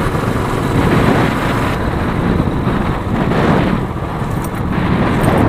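Motorcycle ridden at road speed, heard from a handlebar-mounted camera: wind buffeting the microphone with the engine running underneath, steady throughout.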